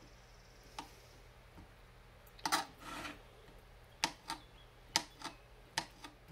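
Kitchen knife slicing pheasant back mushrooms on a thin plastic cutting board: a series of sharp taps as the blade cuts through and strikes the board, irregular and bunched together in the second half.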